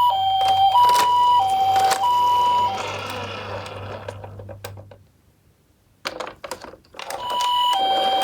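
Toy ambulance minicar's electronic two-tone siren, a high and a low beep alternating about every half second in the Japanese ambulance pattern. It stops about three seconds in, and a noise follows that fades away. A few clicks come next, then the siren starts again near the end.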